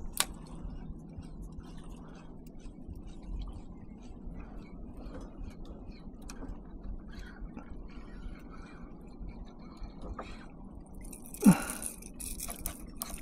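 Faint water and kayak-hull sounds with scattered small knocks. Near the end comes a short, loud whoop falling in pitch, then quick clicking from a spinning reel as a small snapper is reeled in.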